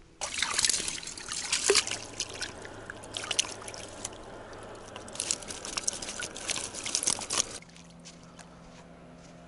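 Water trickling and splashing close by in uneven spurts, stopping abruptly about a second and a half before the end.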